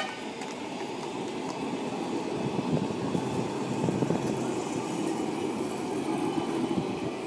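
Electric street tram rolling past close by on its rails: a steady rumble that grows to its loudest about three to four seconds in, then eases slightly.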